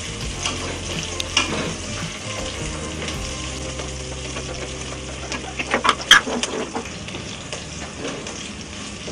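Sliced onions, green chillies and whole spices sizzling in ghee and oil in an aluminium pressure cooker, stirred with a spatula that scrapes the pan. A cluster of louder scrapes comes about six seconds in.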